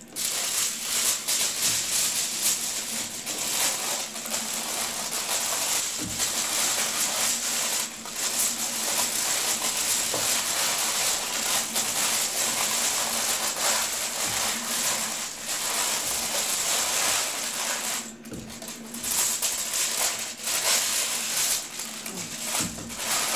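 Aluminium foil crinkling and rustling as it is wrapped and pressed tightly around a roll, with a few short breaks.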